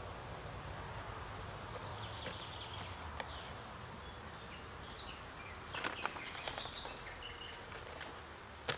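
Clicks and knocks of wooden beehive boxes and frames being handled: one about three seconds in, a cluster around six seconds, and a sharp knock near the end. Birds chirp over steady outdoor background noise.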